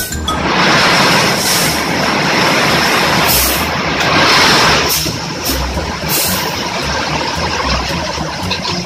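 Bulk salt rushing out of a steeply tipped shipping container as a loud, steady hiss, over a truck engine running. The hiss is strongest for the first five seconds or so, then eases a little.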